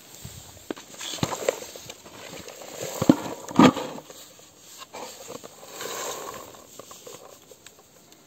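Blueberries, leaves and twigs tipped from a wooden berry comb with metal tines into a bucket: an irregular rattling and rustling with scattered clicks as the comb knocks on the bucket, the sharpest knocks about three seconds in.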